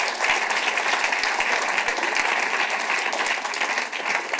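Audience applauding, a dense clapping at a steady level.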